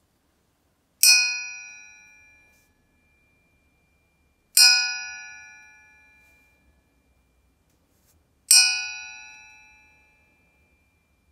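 A metal washing-machine drum pulley, held up by one spoke, struck three times and ringing like a bell, each ring fading over about a second and a half.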